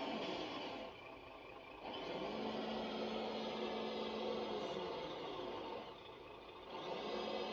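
Electric motor and gearbox of a radio-controlled 6x6 truck whirring as it drives, easing off twice for about a second.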